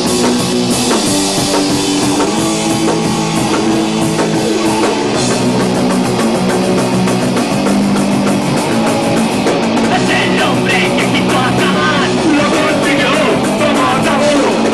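Live rock band playing punk rock, with electric guitar chords and a drum kit. The music is loud and continuous.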